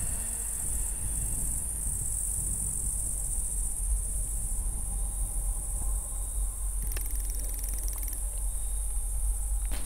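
Steady, high-pitched chorus of crickets over a low, steady rumble.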